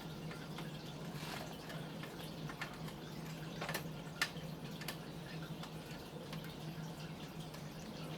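A few faint, short clicks and taps over a steady low hum.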